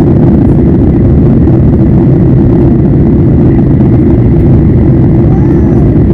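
Loud, steady drone of a Boeing 737's jet engines and rushing airflow, heard inside the cabin from a window seat over the wing, during the climb after takeoff. The sound is a deep, even rumble that does not change.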